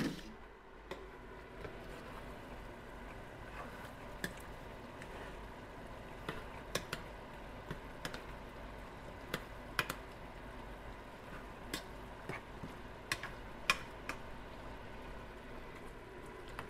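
Chicken adobo being stirred in a skillet with a silicone spoon: scattered light clicks and taps of the spoon against the pan, with soft squishes of the chicken pieces, over a steady background hiss.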